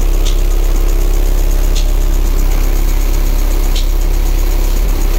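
Car audio system with two 12-inch subwoofers playing a steady, very deep bass note at high volume, heard from outside the car. A faint tick comes about every two seconds.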